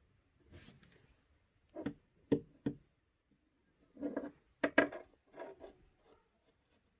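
Handling noises at a workbench: a few sharp clicks and knocks of small hard parts being moved and set down, with a busier cluster of knocks and rubbing about four to five seconds in.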